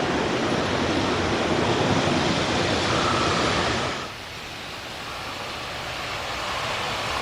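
A steady rushing noise cuts off suddenly about four seconds in. After it, the running noise of an approaching freight train grows steadily louder.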